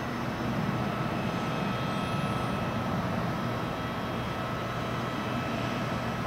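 Learjet 60 business jet's twin turbofan engines running at taxi power: a steady whine over a low rumble.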